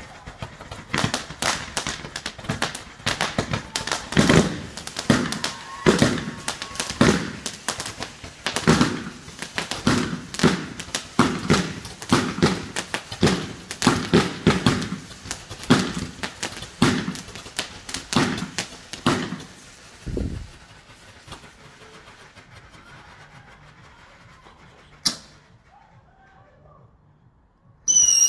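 Multi-shot firework barrage going off: a rapid volley of bangs and crackles for about twenty seconds. It then dies down to a faint hiss with one more sharp crack. Screaming whistles start right at the end.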